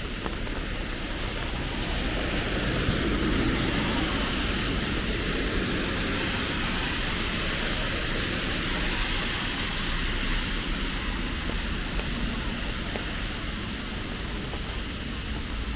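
Steady rain falling, a dense even hiss, with a deeper rushing swell that rises about two seconds in and eases off over the next few seconds.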